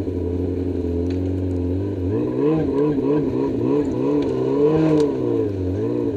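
Snowmobile engine running at low speed, its pitch rising and falling over and over from about two seconds in as it revs up and down, then settling back to a steady note near the end.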